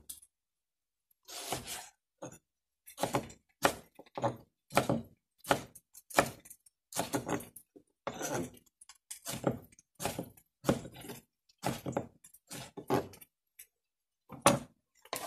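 Kitchen knife dicing raw chicken fillet on a wooden cutting board: a series of dull knocks, about two a second.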